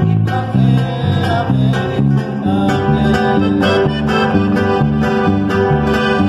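Acoustic guitars strumming and picking a song in a steady rhythm, over a low bass line.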